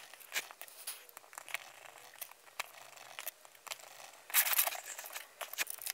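Hands handling and tucking ESC wires into a small racing quadcopter frame: light clicks, rustles and scrapes of wire and frame, with a louder spell of rustling about four and a half seconds in.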